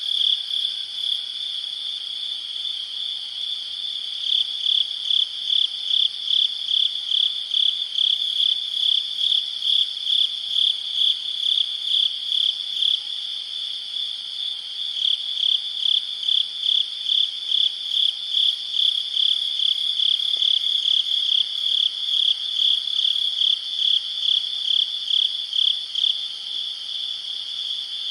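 Crickets chirping at night: a high-pitched chorus with one loud chirper pulsing about twice a second through most of the stretch, over a steadier trill from others.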